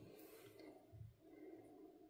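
Near silence: faint room tone with a soft low thump about halfway through.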